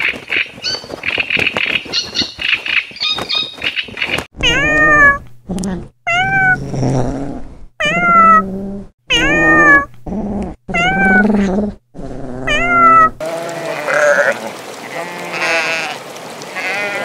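Gulls calling over one another, then from about four seconds in a kitten meowing loudly, a series of separate calls that each rise and then fall in pitch, then from about thirteen seconds sheep bleating.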